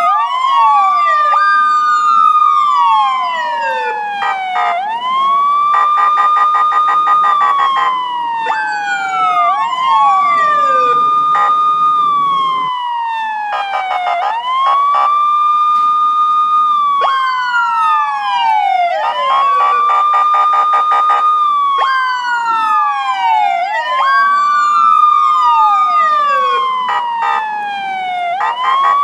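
Police sirens wailing. The main siren's pitch climbs quickly, holds high for a couple of seconds, then slides slowly down, repeating about every five seconds, while a second siren sweeps down out of step with it.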